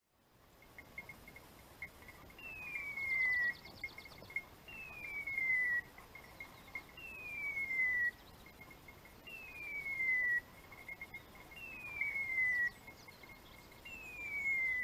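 A high whistle falling in pitch, about a second long, repeated six times at an even pace of about one every two seconds, with a faint broken higher tone between the whistles.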